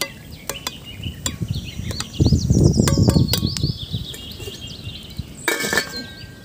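Metal spatula clinking against an aluminium cooking pot while a fish stew is stirred, with birds chirping in the background. There is a low rumble a couple of seconds in, and near the end the metal lid is set on the pot with a ringing clatter.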